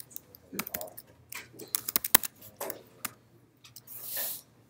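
Typing on a computer keyboard: a run of separate key clicks over about three seconds, then a brief soft hiss about four seconds in.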